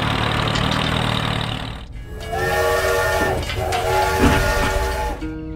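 A miniature tractor's motor runs with a steady, noisy whir for about two seconds. Then a toy train's whistle gives two long toots, each about a second, several tones sounding together like a chord.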